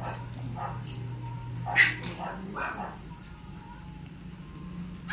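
Dogs giving short yips and whimpers: several separate cries, the loudest about two seconds in. A low steady hum underneath stops at about the same point.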